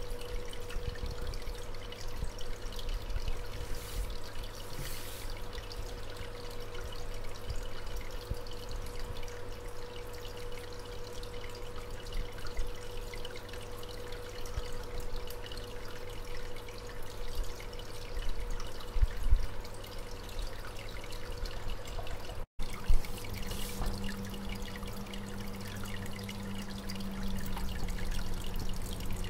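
Aquarium water trickling and pouring, most likely a filter outflow, over a steady low hum. About 22 seconds in the sound drops out for an instant, and after that a different steady hum comes in.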